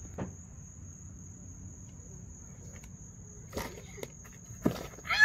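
A steady high-pitched insect trill runs in the background. About three and a half seconds in come a few knocks and then a heavier thump as a unicycle runs into a low wooden plank ramp and its young rider falls. Just before the end, a child lets out a loud cry that falls in pitch.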